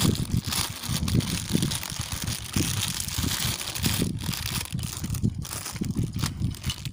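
Thin clear plastic bag crinkling and rustling irregularly as hands pull it open and shake out the parts of a Beyblade spinning top.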